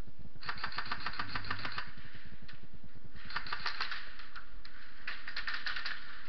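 Airsoft electric guns firing three short full-auto bursts of rapid clicks, the first about half a second in, the others near the middle and near the end.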